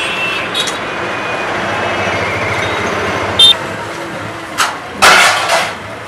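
Busy street noise with traffic running, a short high beep about three and a half seconds in, and a loud hiss about five seconds in.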